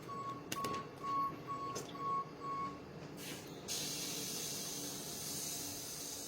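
A few sharp clicks among a short run of high beeps, then a steady spray-like hiss that starts a little before halfway and slowly fades: a mini atomization humidifier putting out mist.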